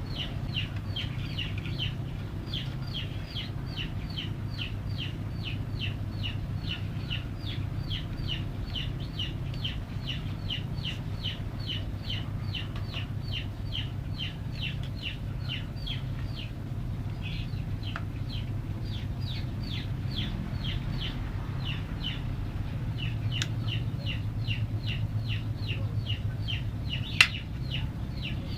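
Young chicks peeping over and over, short high falling peeps about two or three a second with a couple of brief pauses, over a steady low hum. One sharp click near the end.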